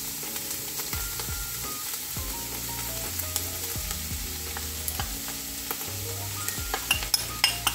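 Diced onions frying in oil in a pot, sizzling steadily as floured ground beef is tipped in, with a few light clicks near the end. Soft background music runs underneath.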